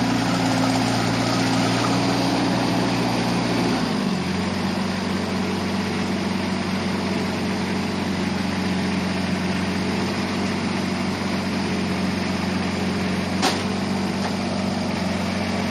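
Yanmar JAC-18 tractor's 18 hp three-cylinder diesel engine running steadily as the small crawler tractor moves; about four seconds in the engine speed drops to a lower, steady note. A single sharp click about thirteen seconds in.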